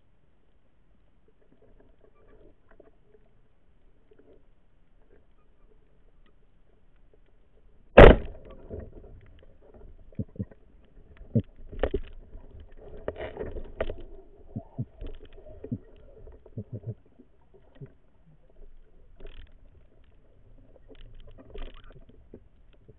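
Band-powered speargun fired underwater: one sharp, loud crack about eight seconds in. It is followed by scattered clicks and knocks for several seconds.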